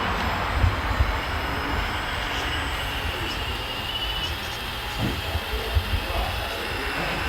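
RC hydraulic construction model at work: a thin, steady high whine that fades about four seconds in, over a noisy mechanical hiss, with a few low knocks.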